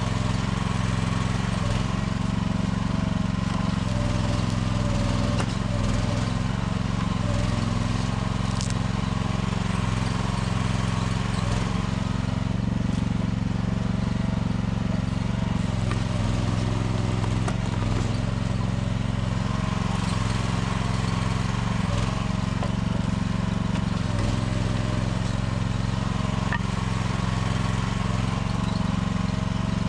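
Small engine of a one-ton mini excavator running steadily at constant speed, with a fainter higher tone that comes and goes.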